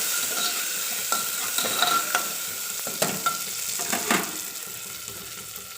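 Chopped onion and green chillies frying in hot oil in an open pressure cooker, sizzling steadily while a spoon stirs them and scrapes across the metal pot in repeated strokes.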